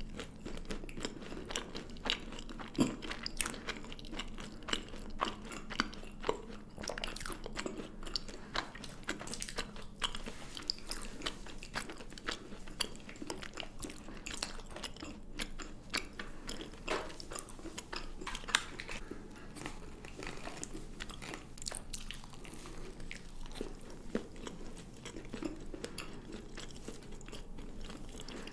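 Chocolate being bitten and chewed, a steady run of irregular sharp crunches and chewing sounds, several a second.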